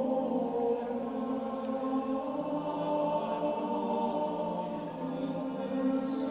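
Background music: a choir singing a slow chant in long held notes.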